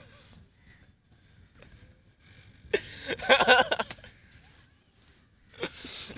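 A man laughing in a loud burst of about a second, about three seconds in, with another laugh starting near the end. Crickets chirp steadily in short repeated pulses underneath.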